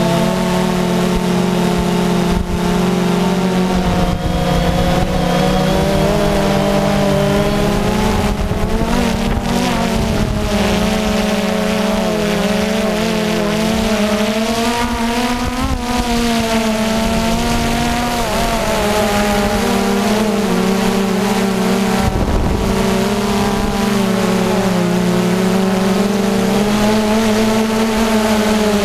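Quadcopter drone's electric motors and propellers buzzing loudly and steadily, the pitch wavering up and down as the motors change speed in flight.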